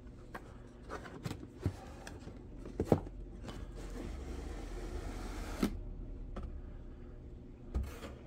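Cardboard boxes being handled and opened: a run of knocks and taps, the loudest about three seconds in, then a couple of seconds of cardboard scraping and sliding that ends in a knock, and a thump near the end.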